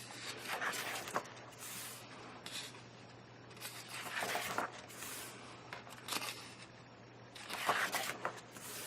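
Pages of a paper colouring magazine being turned one after another: a series of short, faint paper rustles and slides.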